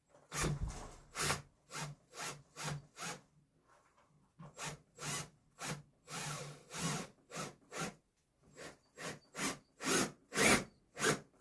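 A tool working wood in short, even strokes, about two a second, with two brief pauses.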